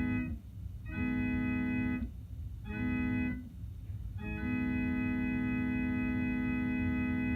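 Electronic keyboard with an organ-like voice imitating a Prime 920 train air horn. It sounds the grade-crossing pattern: a long blast ending just after the start, another long blast, a short one, and a final long blast held about three seconds.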